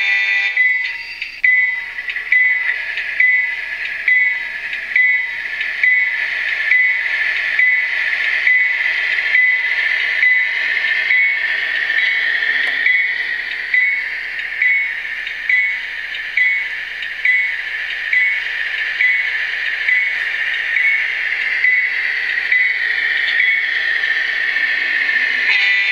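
HO scale GEVO locomotive model's DCC sound decoder ringing the locomotive bell, a strike a little more than once a second, over the steady running sound of the diesel engine. A horn begins to blow at the very end.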